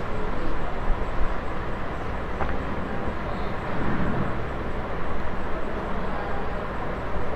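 Steady outdoor background noise with a low rumble, and one faint click about two and a half seconds in.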